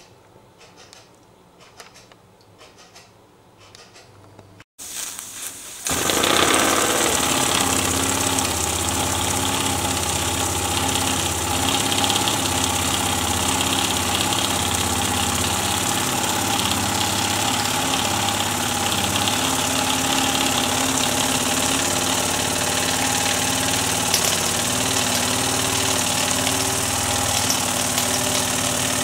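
Stuart ST single-cylinder model steam engine running on steam from a small gas-fired boiler: a loud, steady hiss with mechanical running noise that starts about six seconds in, after a few quiet seconds with faint regular ticks.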